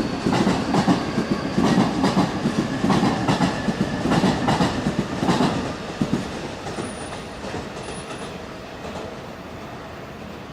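A train's wheels clattering over rail joints with a rhythmic clickety-clack, loud for about six seconds and then dying away as the train moves off or slows.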